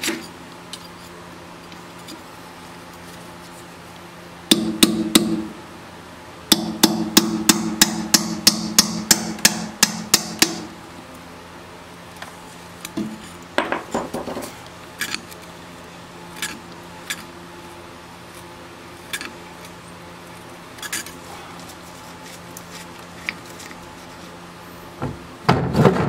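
Hammer blows driving a steel bar against the hub lock nut of a TCM FG25N2S forklift's drive axle to knock the nut loose. Two blows, a short pause, then a quick run of about a dozen ringing metal blows, about three a second, followed by scattered lighter knocks and clinks.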